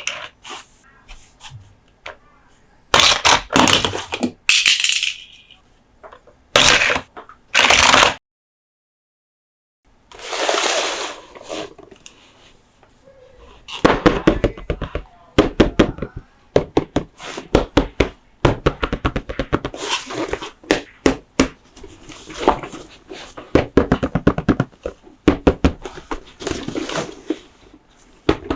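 Close-up hand sounds on Monster Jam toy trucks and their packaging: a few long rustling scrapes in the first half, a brief break of total silence about eight seconds in, then a long run of quick taps and clicks of plastic and diecast parts.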